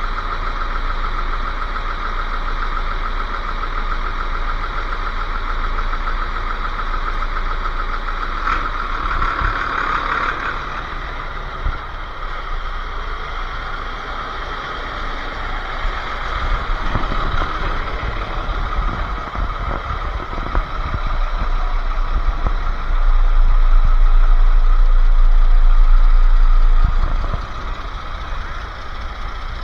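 Truck engine running steadily, with a louder low rumble for a few seconds near the end.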